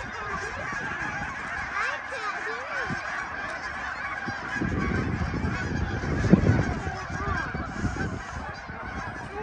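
A large flock of geese honking in flight: many overlapping calls forming a dense, continuous chorus. A low rumble rises about halfway through and fades again.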